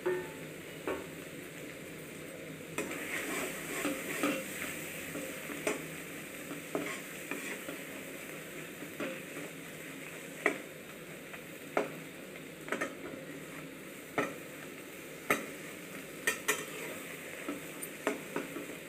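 Metal spatula stirring and scraping scrambled egg bhurji in a kadhai, knocking against the pan in irregular sharp clicks, over a faint steady frying sizzle.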